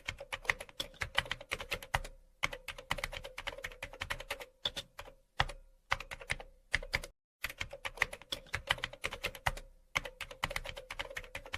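Typing on a keyboard: rapid key clicks in runs with short pauses, stopping completely for a moment a little past halfway.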